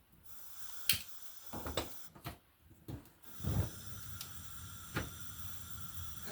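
A pan of rice being set on the hob and the hob turned on: a series of sharp clicks and light knocks at uneven intervals, one duller knock about three and a half seconds in, over a faint steady hiss.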